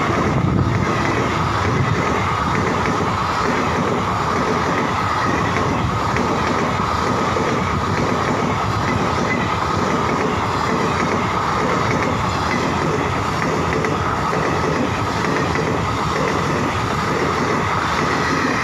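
Passenger express coaches passing at speed close by: a loud, steady rumble of wheels clattering on the rails, with a thin steady high whine over it.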